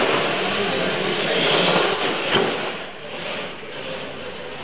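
Scale radio-controlled monster trucks launching off the start line and racing on a concrete floor: the whine of their motors and gears with tyres scrubbing on the concrete, and a sharp knock about two seconds in.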